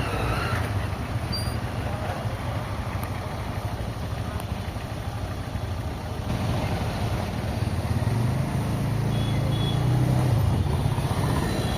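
Road traffic noise on a drive: a steady low engine drone with tyre and road noise, growing louder from about halfway through.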